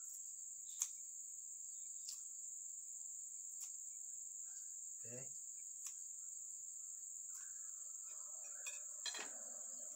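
Steady high-pitched chorus of crickets, with a handful of sharp clicks from leaves being cut by hand, the loudest about a second in.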